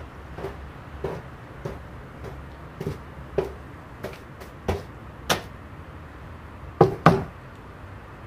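Footsteps, about one every half second or so, followed near the end by two loud knocks in quick succession on a wooden front door.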